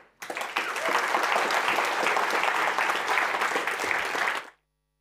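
Audience applauding, a dense patter of many hands clapping that starts just after the beginning and cuts off suddenly near the end.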